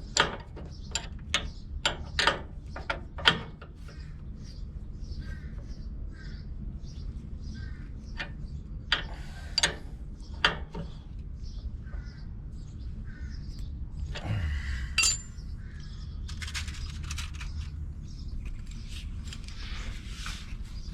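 A quick run of sharp metal clicks and clinks from hand tools at work on the front suspension for the first few seconds, then quieter.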